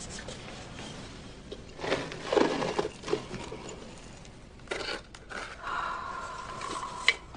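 Soft scraping and rustling as ashes are poured from a container into a bucket, with a sharp click near the end.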